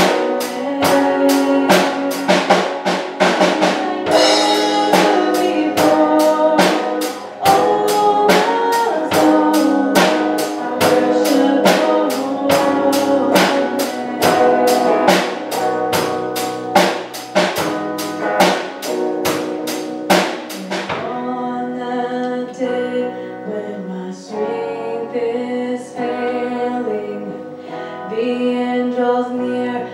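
Live worship band: a woman singing with electric guitar and a drum kit keeping a steady beat. About two-thirds of the way through, the drums stop and the voice and guitar carry on more quietly.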